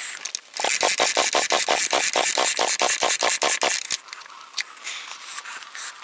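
Oregon petrol chainsaw pulled over on its recoil starter with the spark plug out, the engine turning over freely in an even run of sharp chuffs, about six a second, for some three seconds, then a few faint clicks. This clears petrol from a cylinder that the owner suspects is flooded.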